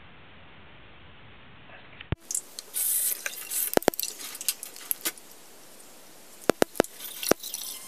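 Steady recording hiss for about two seconds, then toothbrushes and toothpaste tubes handled at a bathroom sink: scattered sharp clicks and knocks, and a brief hiss about half a second after the change.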